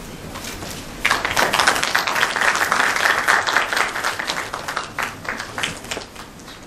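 Audience applause that starts abruptly about a second in, stays full for a few seconds, then thins to scattered claps and dies away near the end.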